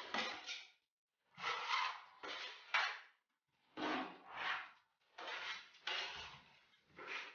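Steel filling knife scraping and working plaster filler on a hand-held hawk: a string of short scrapes with brief pauses between them.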